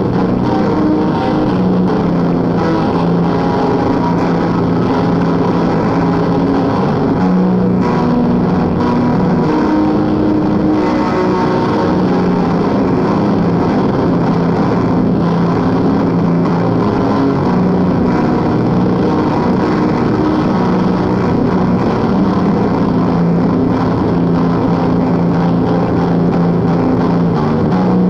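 Lo-fi experimental noise music from a home cassette recording: a dense, steady wall of distorted drone with low notes that shift every few seconds. It was recorded through the air from one cassette recorder onto a portable journalist's recorder.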